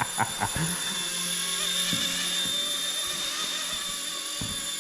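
Small electric RC helicopter hovering: a steady high-pitched motor whine over rotor noise.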